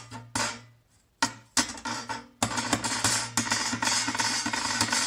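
Knocks and rattling clatter of the keyboard's aluminum top plate being lifted off and handled. A few separate knocks come first, then a dense clatter from about halfway that stops abruptly near the end.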